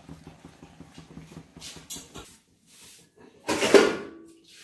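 Steel kitchen utensils being handled at a washing spot, with one loud clank of a steel pot about three and a half seconds in that rings briefly. Before it there is a faint, rapid low patter.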